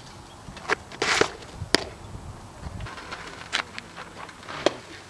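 Several sharp pops of a fastpitch softball smacking into a catcher's leather mitt, the loudest a little under two seconds in, with a short scraping sound just before it.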